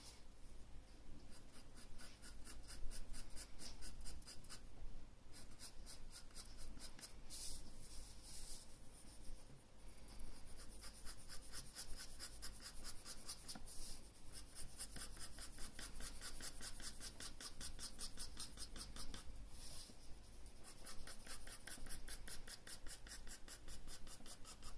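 Graphite pencil shading on drawing paper: quick, evenly repeated scratching strokes, several a second, broken by a few brief pauses.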